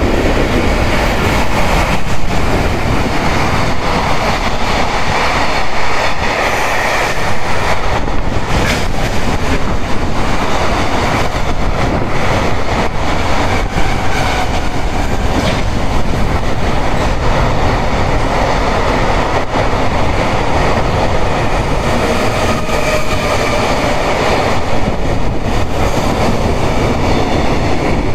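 JR Freight EF210 electric locomotive hauling a long container freight train past at steady loudness, the wagons' wheels rumbling and clattering over the rails. The train is braking, slowing for a stop at a freight terminal, and a faint squeal comes in now and then in the second half.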